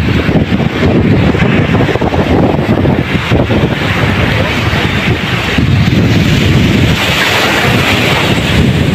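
Strong wind buffeting the microphone, a loud, gusty low rumble. Near the end, waves washing onto the beach add a hiss.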